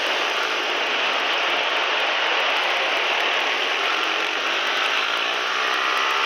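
Pit bike engine running hard, heard from an onboard camera as a steady, dense rasp. About four seconds in, a rising engine note comes through as it picks up revs.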